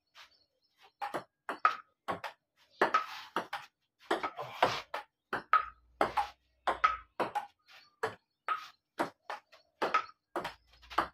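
Table tennis rally: the ball clicks back and forth off the paddles and the wooden-board table in a steady run of sharp hits, about two a second.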